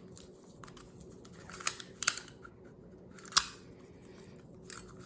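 A plastic Square-1 puzzle being turned by hand: a few sharp clicks and clacks as its layers snap into new positions, three of them louder, spread across the middle.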